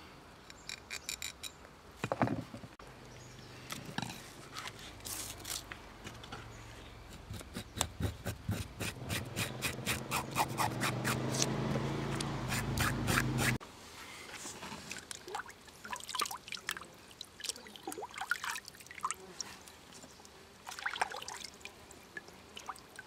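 A fish being cleaned: rapid scraping and clicking, with water running that builds up and stops abruptly about halfway through.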